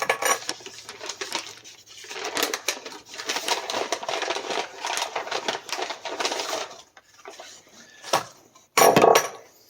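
Copper pipe, coupler and valve being handled and set down: clinks and rattles of metal fittings with rustling between them, and a louder clatter near the end.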